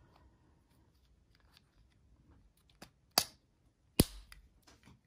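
Plastic clicks from an older Mercedes-Benz key fob's casing as it is pressed back together after a battery change: near silence at first, then a small click, a sharper one, and the loudest snap about four seconds in as the part seats.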